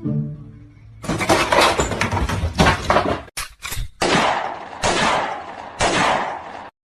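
A run of clattering and banging, then three sudden loud crashes about a second apart, each fading out.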